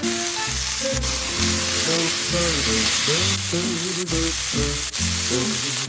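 Meltique steak sizzling steadily as it fries, with a few sharp pops, over background music.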